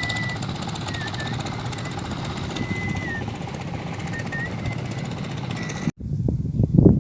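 A boat's engine running steadily with a fast chugging beat and a thin, wavering high whine over it. It cuts off abruptly about six seconds in, giving way to louder, irregular gusty noise.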